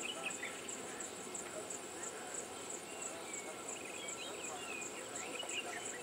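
A high insect trill pulsing steadily about three times a second, with scattered short chirps and whistles of small birds.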